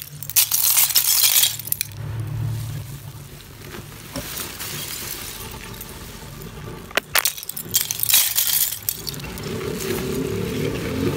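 Brittle, thin shards of roasted Multani mitti (fuller's earth clay) clinking and crackling against each other as the heap is stirred and handled, in two main spells: about half a second in and again about seven seconds in.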